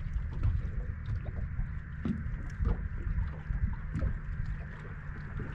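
Wind buffeting the microphone over the hiss of water lapping against a bass boat's hull, with a few small scattered knocks.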